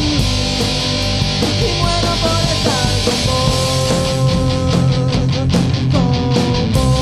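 Instrumental passage of rock music: held melodic notes over bass and a steady drum beat with cymbal hits, no vocals.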